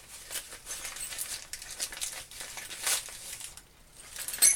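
Plastic wrapping and packaging crinkling as it is handled, in irregular rustles. Small metal cutting tools clink with a short ring near the end.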